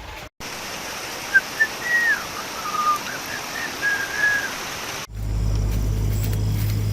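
A bird whistling a few short clear notes over a steady hiss. About five seconds in, an abrupt cut switches to a steady low engine drone.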